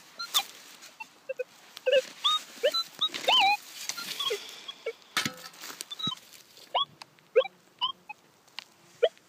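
A dog whining in many short, high whines that rise and fall, with a few knocks and scrapes of a shovel digging into forest soil.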